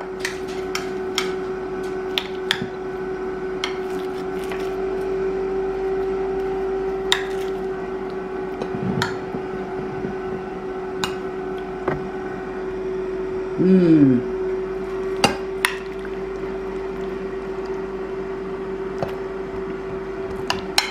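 A metal pie server scraping and clicking against a glass pie dish as a slice of chicken pot pie is cut and lifted out, in scattered sharp clicks. Under it runs a steady hum from a kitchen appliance.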